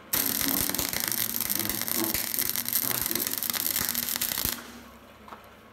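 Flux-cored, self-shielded wire welding arc from an old Elektra Beckum MIG/MAG welder run without shielding gas: a loud, dense crackle with irregular sharp pops and heavy spatter. It starts abruptly and stops after about four and a half seconds.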